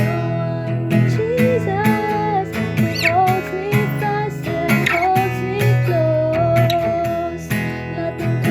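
Music: an acoustic guitar strummed in a steady rhythm, with a sustained melody line gliding and wavering over it.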